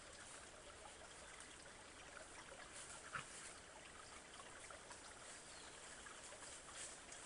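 Faint, steady trickle of a woodland creek, with a single light snap about three seconds in.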